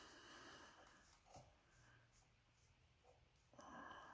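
Near silence: room tone with a couple of faint soft knocks.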